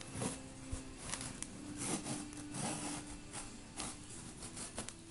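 Hands rubbing and scraping on a cardboard monitor box: a series of short, scratchy rasps a few times a second, irregularly spaced.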